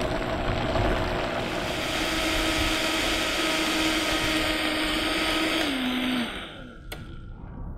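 Countertop blender running steadily, puréeing a thick green smoothie of frozen pineapple, avocado and cucumber. About six seconds in, its motor pitch drops as it is switched off and spins down, with a click near the end.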